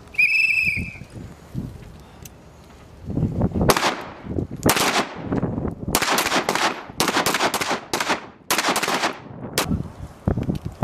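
Beretta M9 9 mm pistol fired at a range: about ten shots in quick, uneven succession, starting about three and a half seconds in, each with a short echo. A brief high-pitched tone sounds in the first second.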